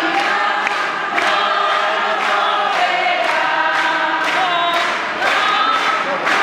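Many voices singing together, choir-like, over a steady beat.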